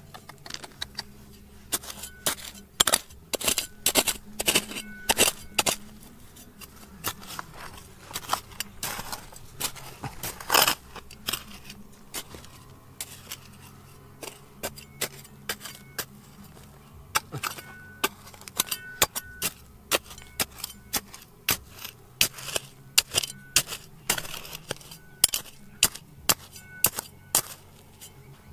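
Metal hand digging tool striking stony ground: sharp clinks and knocks, irregular and often two or three a second, with scraping between.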